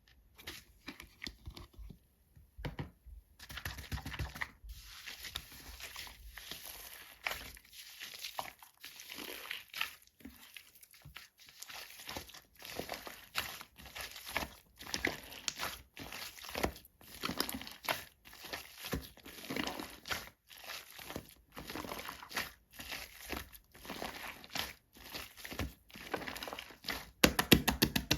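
Shaving-foam slime being squeezed and kneaded by hand, giving a rapid string of small crackles, clicks and pops. It is faint for the first few seconds, then continuous, and loudest near the end.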